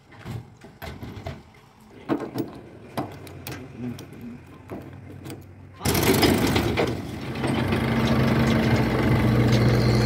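Light clicks and knocks as a fuel nozzle is handled at a pump, then, about six seconds in, a tractor's diesel engine running loudly and steadily.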